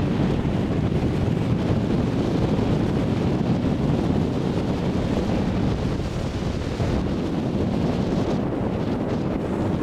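Steady wind buffeting the microphone: a dense, even low rush of noise.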